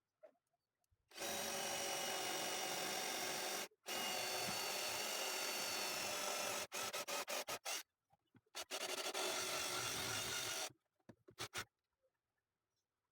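Circular saw cutting through wood in several runs of a few seconds each, starting and stopping abruptly, with a string of quick short bursts in between.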